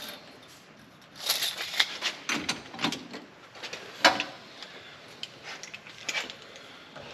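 Clicks, rattles and scraping of PEX pipe, fittings and hand tools being handled during plumbing work, busiest in the first few seconds, with a sharp click about four seconds in.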